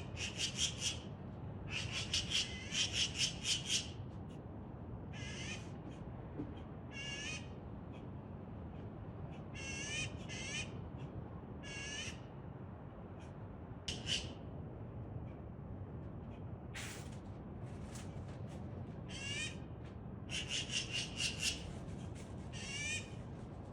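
Magpie chattering: runs of harsh, rapid calls repeated several times, with shorter single calls in between, over a steady low rumble.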